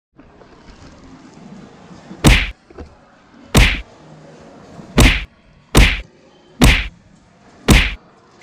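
Six sharp whacks about a second apart, over a low background hum.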